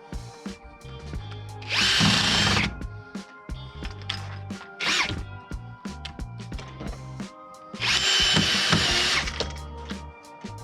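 Power drill running in two bursts of about a second each, with a shorter burst in between, driving fixings into the door framework. Background music plays underneath.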